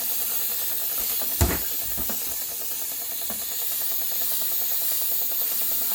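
Steam mop blasting steam with a steady hiss, with a knock about a second and a half in.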